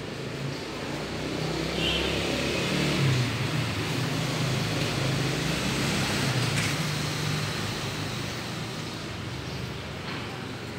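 A motor vehicle's engine hum swelling and then fading as it passes.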